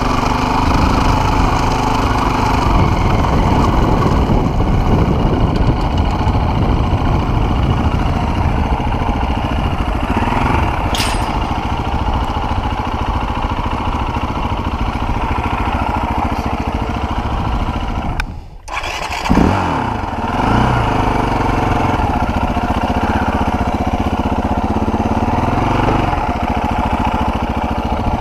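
Off-road motorcycle engine running and revving as it rides over grass, then ticking over while a field gate is opened. About two-thirds through, the engine drops out briefly and comes back with a sudden burst of revs.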